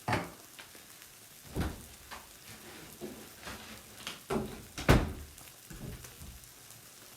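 Kitchen handling sounds: a series of about six knocks and clunks of things being set down or moved, the loudest a little before the five-second mark.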